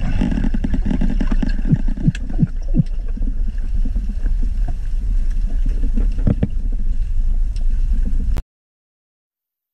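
Underwater ambient noise picked up through a diving camera's waterproof housing: a dense, steady low rumble of moving water with scattered sharp clicks and pops. It cuts off suddenly to silence about eight and a half seconds in.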